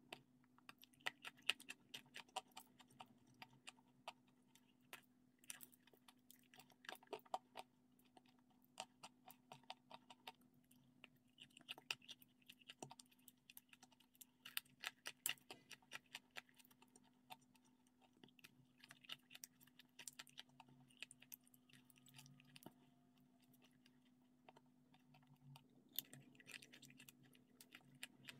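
Close-up eating sounds: wet mouth clicks and soft chewing of a cream-filled, cocoa-dusted cake, in irregular clusters of small sharp clicks with a brief lull near the end.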